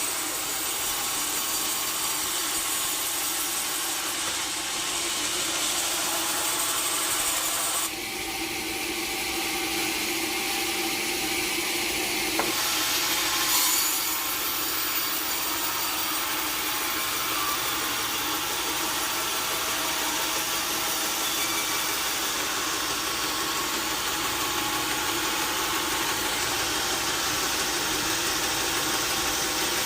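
Sawmill saw blade cutting steadily through a log: a continuous hiss of sawing wood, with two abrupt changes in tone about eight and twelve seconds in.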